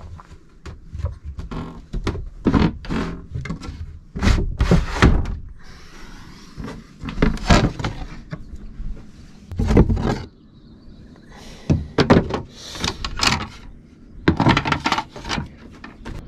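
Irregular knocks, clunks and scrapes of a small sailboat's companionway hatch and boards being slid and lifted as someone climbs out of the cramped cabin, with the heaviest clunks about four seconds in and near the middle.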